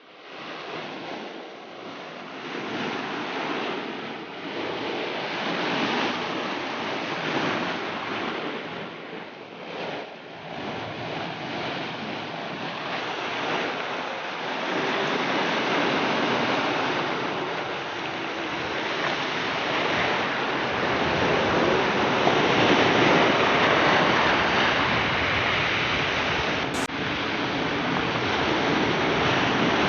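Sea waves washing onto the shore: a continuous rushing surf that swells and ebbs, growing louder over the first seconds, with one brief click near the end.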